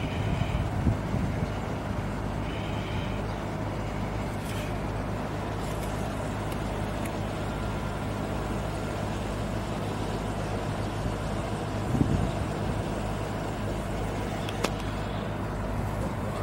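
Diesel engine of a Krupp railway breakdown crane running steadily at a constant speed, with a couple of brief faint clicks.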